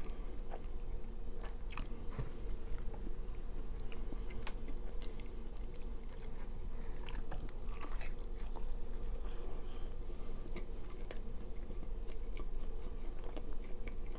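A person chewing and biting food close to the microphone, with irregular small crunches and mouth clicks.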